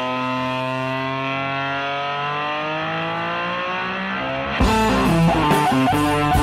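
Rock intro music. One long held electric guitar note slowly rises in pitch, then about four and a half seconds in drums and guitars come in together with a riff.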